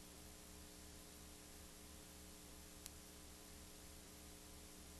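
Near silence: the recording's steady hiss with a faint electrical hum, and one faint click about three seconds in.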